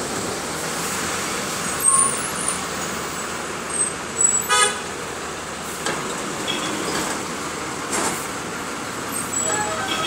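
Steady road noise of a moving bus in city traffic, with a sharp knock about two seconds in and a vehicle horn honking once, briefly, about halfway through.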